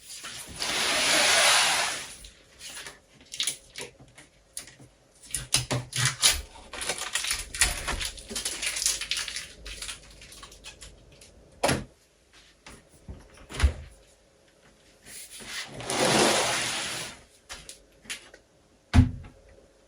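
Unpacking a new fridge: packaging rustling or tearing in two longer stretches, with scattered knocks and clicks of the unit and its parts being handled, and a sharp thump near the end.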